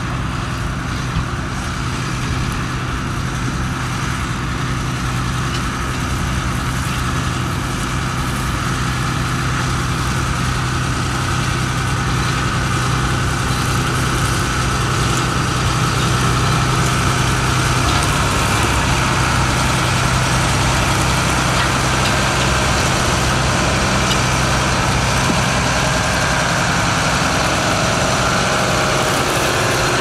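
John Deere tractor's diesel engine running steadily, growing gradually louder.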